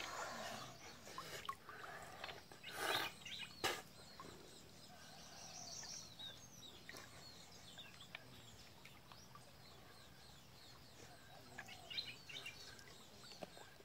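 Faint bird chirping, with two short sharp noises about three seconds in.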